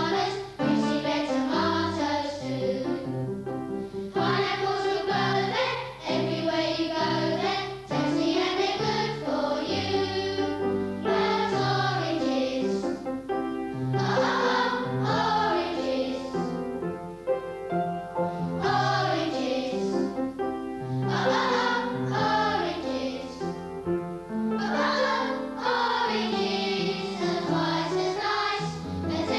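A group of voices singing a song with instrumental accompaniment, a bass line stepping underneath.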